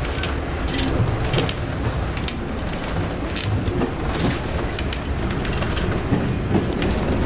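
Train running along the line, heard from the cab: a steady low rumble of wheels on rail, broken by frequent short rattles and clicks.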